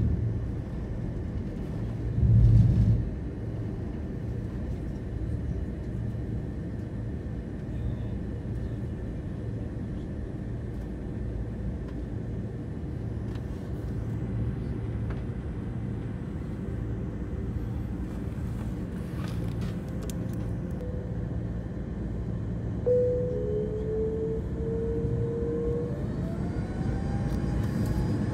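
Jet airliner heard from inside the cabin: a steady low engine and cabin rumble while it taxis, with two low thumps in the first few seconds. About 23 seconds in a whine appears, and from about 26 seconds it rises in pitch as the engines spool up for the take-off roll.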